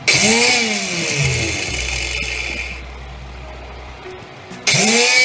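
Homemade mixer grinder's electric motor spinning a flat steel blade in an empty aluminium pot, switched on in two short bursts: at the start and again near the end. Each burst starts suddenly with a whirring hiss and a whine that rises and then falls, and the first runs about three seconds before dying down.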